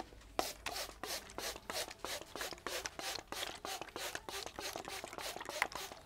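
Hand-pumped plastic spray bottle spritzing water onto the hair in quick repeated squirts, about three hissing spritzes a second.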